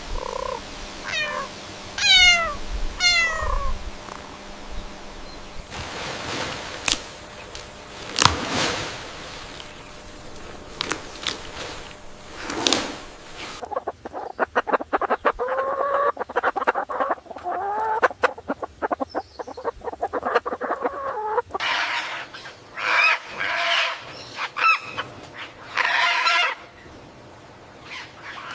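Farm animal calls, chickens clucking among them, in a run of short separate calls with a stretch of rapid clicking in the middle.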